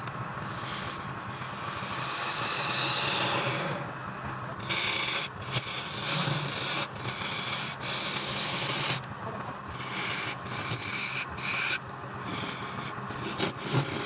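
Wood lathe running steadily while a tool or abrasive rubs against the spinning wood with a hissing rasp. The rasp breaks off briefly many times in the second half as the work is lifted away and put back.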